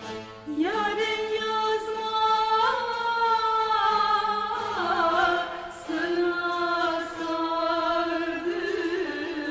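Female singing of a Turkish folk song (türkü): the voice comes in about half a second in, sliding up to a long held note, then carries on in drawn-out, ornamented phrases with small turns in pitch.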